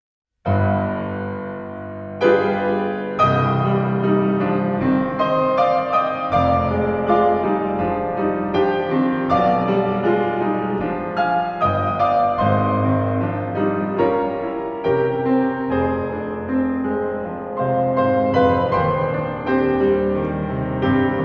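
Piano music, with notes and chords struck about once a second, starting about half a second in.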